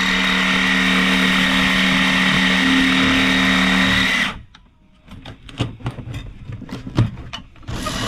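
A power cutting tool runs steadily under load, cutting through the steel bead wire of an old tire on a steel wheel, then stops a little past four seconds in. A string of sharp knocks follows, and the tool starts up again near the end.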